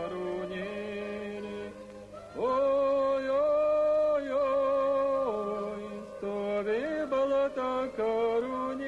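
Film soundtrack music: a chant-like sung line of long held notes that step between pitches, over a low steady drone.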